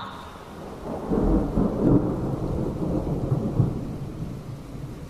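Thunder rumbling over steady rain: a deep roll that swells about a second in and slowly fades away.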